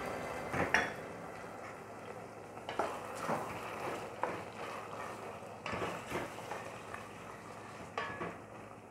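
Wooden spoon stirring chicken livers and onions in a stainless steel pot, with irregular light knocks and scrapes against the pot's side, over a faint hiss of frying.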